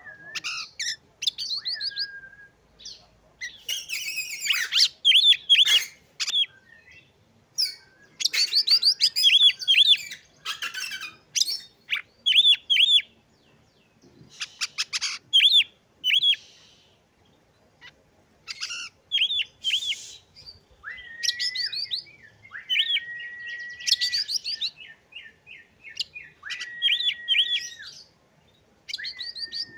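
Oriental magpie-robin singing in separate bursts of varied phrases: quick runs of repeated high chirps and trills, with short pauses between them. In the last third, long level whistled notes stand out among the phrases.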